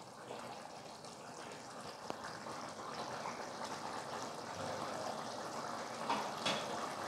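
Thick coconut-milk chicken gravy simmering and bubbling in a steel pot, reducing to thicken, with a wooden spatula stirring through it. Two light knocks about six seconds in.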